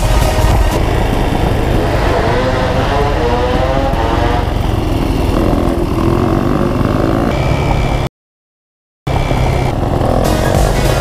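Enduro dirt-bike engine revving, its pitch rising and falling as the rider accelerates and eases off. The sound cuts out completely for about a second after about eight seconds, then returns.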